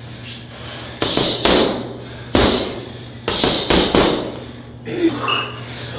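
Kickboxing strikes landing on padded striking gear: a few single hits, then a quick run of four in a row.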